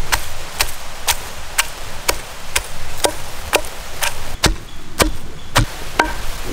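Long wooden pestle pounding garlic, ginger and black pepper in a traditional stone mortar (ural). The sharp knocks come in a steady rhythm of about two a second.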